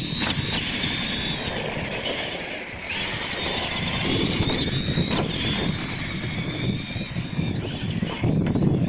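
Radio-controlled monster truck's electric motors and gears whining, the high pitch rising and falling as the throttle is worked.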